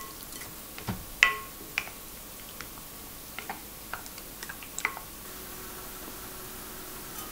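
A spoon stirring egg and sliced onion in a glass mixing bowl, knocking against the glass in scattered clinks, several with a short ring. A faint steady hum comes in about five seconds in.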